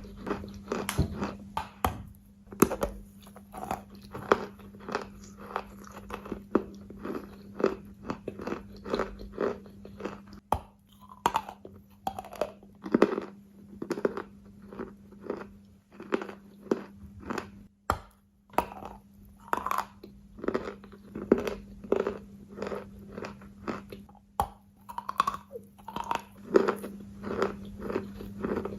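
Wet, gritty material crunching under pressure, one crunch after another at roughly two a second, over a steady low hum.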